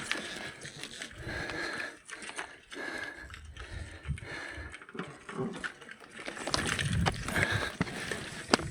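A person breathing hard in short, wheezy breaths while climbing, with irregular clicks and knocks of footsteps on loose stones.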